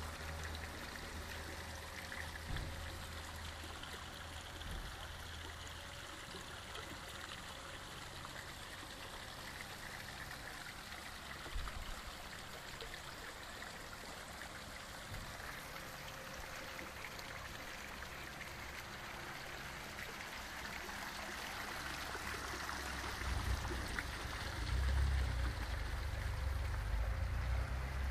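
Garden fountain and rock cascade running: a steady splashing trickle of water falling into a small pond. Some low rumbling comes in over the last few seconds.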